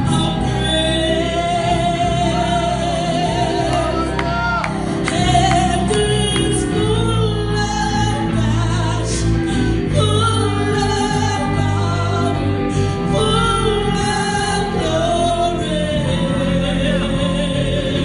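A woman sings a gospel song through a microphone and PA, accompanied by an amplified electric guitar.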